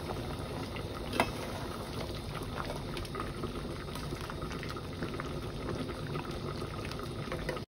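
Thick moong dal boiling in a steel pot on the stove, bubbles popping steadily, with one sharp click about a second in.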